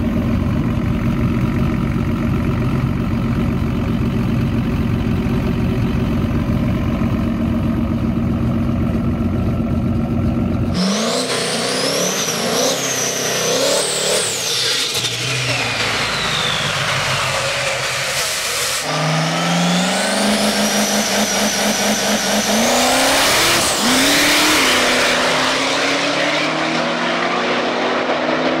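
Cummins turbo-diesel in a Chevelle idling with a steady low rumble. About eleven seconds in, the same car on the drag strip revs with its pitch sweeping up and down, then launches and pulls hard, the engine pitch climbing for several seconds as it accelerates away.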